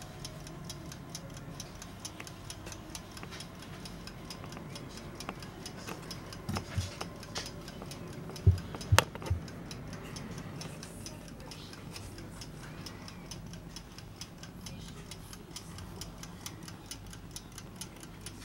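Mechanical clock movement of a Trenkle-Wepke ormolu mantel clock ticking evenly and steadily, running. A few dull knocks about halfway through are the loudest sounds.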